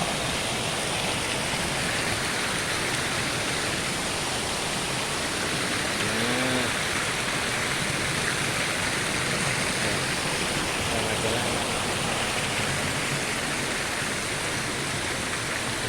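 Waterfall's falling water rushing steadily without a break.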